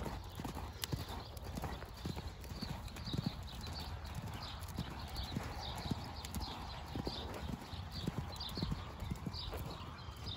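Hoofbeats of a Canadian–Quarter Horse cross gelding cantering on sand footing: a steady, even run of thuds, a few to the second.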